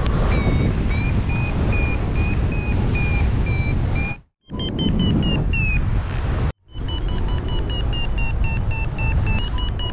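Paragliding variometer beeping in quick, evenly spaced climb tones, their pitch stepping higher partway through as the lift gets stronger, over heavy wind noise on the microphone. The sound cuts out completely twice, briefly, about four and six and a half seconds in.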